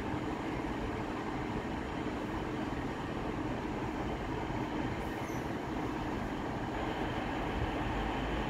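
Class 150 Sprinter diesel multiple unit pulling slowly into the platform: a steady drone from its underfloor Cummins diesel engines mixed with wheel-on-rail noise, growing slightly louder as it nears.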